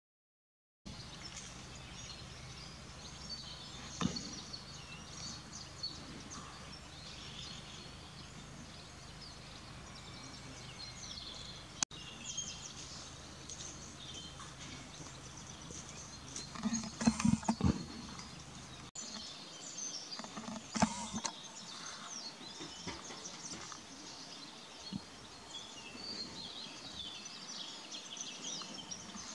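Small songbirds chirping and singing in many short, high phrases over outdoor background noise, starting about a second in. There are a few short knocks about two-thirds of the way through.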